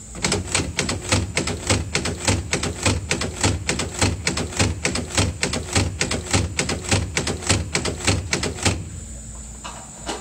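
Air-driven exerciser machine cycling the action of an M2 .50-caliber machine gun: a fast, even run of metallic clacks, about four or five a second, lasting about nine seconds and then stopping. This is the mechanical break-in cycling done after headspace and timing are set.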